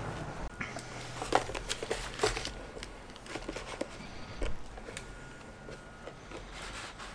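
Light knocks and rustling as a puppy is handled and set into a plastic tub on a kitchen scale, with a few sharper taps of the tub about a second in, two seconds in and halfway through.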